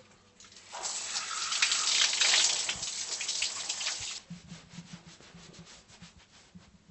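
Water running from a bathroom sink tap and splashing, starting about a second in and cutting off at about four seconds.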